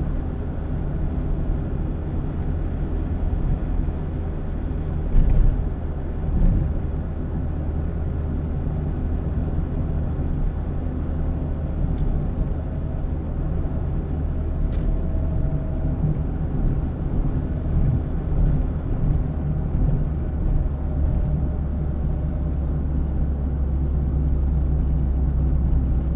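Steady road and engine noise of a moving car heard from inside the cabin through a dashcam's built-in microphone, mostly a low hum, with two short thumps about five and six and a half seconds in.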